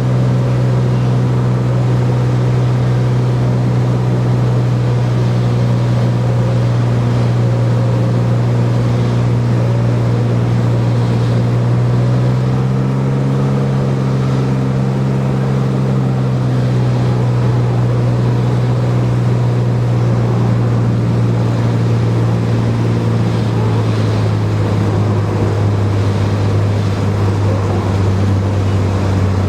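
Cessna 210 Centurion's six-cylinder piston engine and propeller running with a steady drone. It rises briefly in pitch about halfway through, then slowly winds down in pitch near the end.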